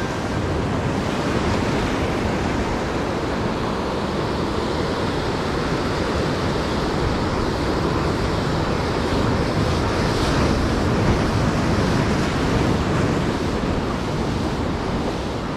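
Ocean surf breaking and washing over jetty rocks, a steady rushing wash that swells a little now and then.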